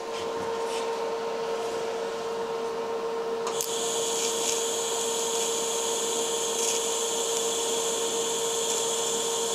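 TIG welding arc struck about three and a half seconds in, then burning steadily with an even hiss and a high whine while a tack weld is laid on a steel sprocket. A steady hum runs underneath throughout.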